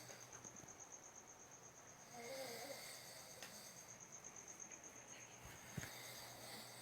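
Faint snoring: one soft snore about two seconds in, over a steady high insect trill.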